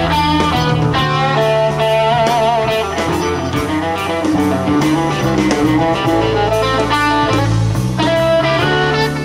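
Live blues-rock band: a Stratocaster-style electric guitar plays a lead line over bass and drums, with a held, wavering note about two seconds in.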